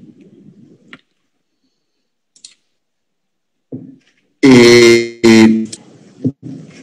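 Two loud, steady, pitched honks about half a second each, a little after four seconds in, with a few faint clicks around them.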